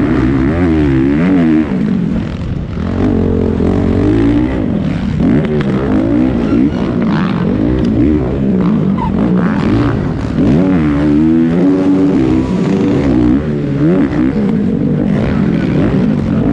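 Onboard sound of a 450cc four-stroke motocross bike engine being raced. It revs up hard and drops back again and again, its pitch rising and falling every second or two as the rider works the throttle and gears.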